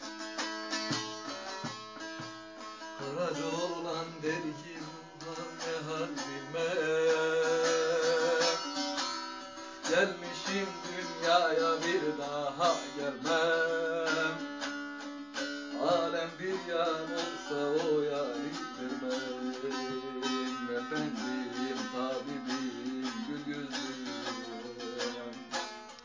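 Bağlama (long-necked saz) played with fast, continuous plucked strokes in a Turkish folk melody. Over it, a voice holds long, wavering notes at times in the first half.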